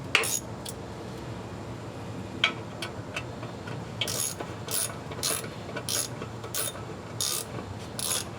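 Hand socket ratchet tightening the bolts of a deep aluminum transmission oil pan on a 46RE automatic transmission, its pawl clicking. After a couple of single clicks, steady back-and-forth strokes begin about halfway through, about two a second.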